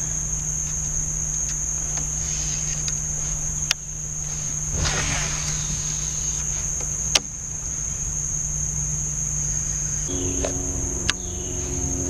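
Steady, high-pitched insect chorus throughout, with a few sharp clicks of a baitcasting reel and a brief swish of a cast about five seconds in. Near the end the reel is cranked in, adding a steady whir.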